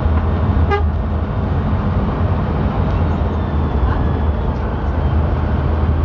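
Steady low engine and road rumble heard from inside a moving vehicle at speed, with a short horn toot under a second in.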